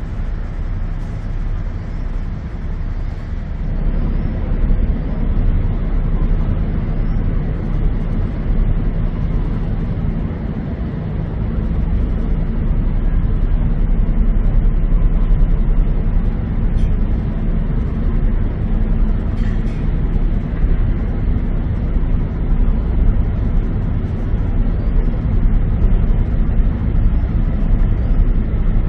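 Steady low engine rumble and hum of harbour ferries and city traffic, swelling about twelve seconds in, with a couple of faint clicks.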